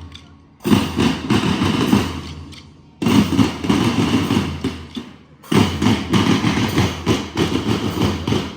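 Marching band drums (snare and bass drums) playing a fast beaten cadence in repeated phrases. Each phrase starts abruptly, lasts about two and a half seconds and fades before the next begins.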